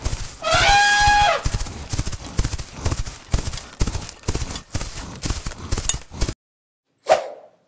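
Cartoon animal sound effects: a short pitched animal call about half a second in, then a run of clopping footsteps, about three a second, that stops about a second before the end, followed by a brief faint sound.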